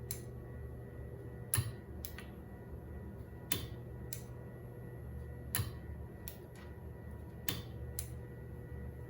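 Stepper motor rig running with a steady low hum, while limit switches and a latching relay click sharply, mostly in pairs, about every two seconds as the motor's direction is reversed at the upper and lower limits.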